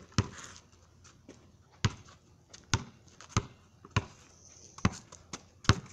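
Basketball being dribbled on pavement: about eight sharp bounces, unevenly spaced.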